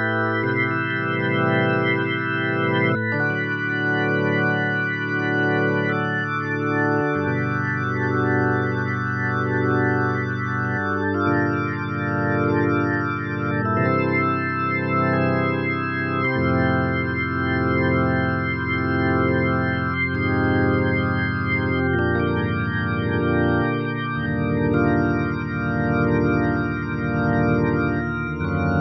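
Korg Nautilus keyboard workstation playing an organ sound: held chords that change every few seconds, with a slow, even wobble in loudness.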